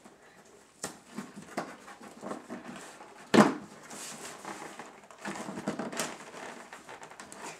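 Cardboard box being worked open with a pen: scattered scratching, scraping and crinkling of cardboard and tape, with one louder sudden noise about three and a half seconds in and a rougher stretch of scraping a couple of seconds later.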